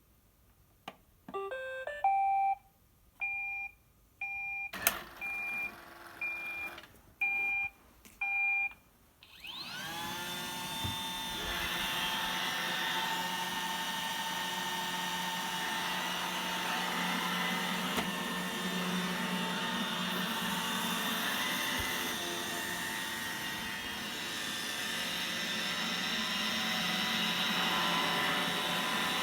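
Roomba robot vacuum plays a short rising chime, then gives a string of about eight short beeps with a sharp click among them. About nine seconds in, its motors spin up with a rising whine and it runs steadily, cleaning.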